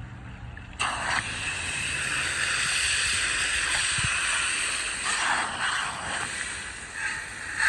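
Garden hose water pouring into a metal waterer, a steady splashing hiss that suddenly gets louder about a second in as the waterer fills and spills over into its pan.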